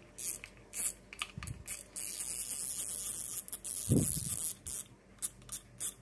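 Large Daiwa spinning reel being worked by hand: a few sharp clicks, then a soft steady whirring hiss for about two and a half seconds as the handle is cranked, and a quick run of clicks near the end.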